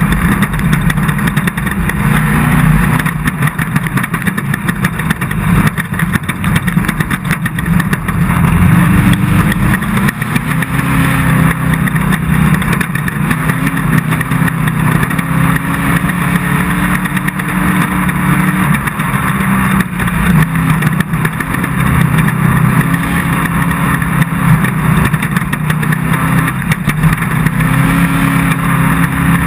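Off-road desert race car's engine running hard and loud without a break, its pitch climbing and dropping again and again as the throttle is worked.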